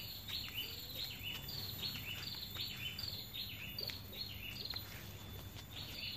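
A bird calling over and over: a short falling chirp repeated about two to three times a second, faint over a low steady background noise.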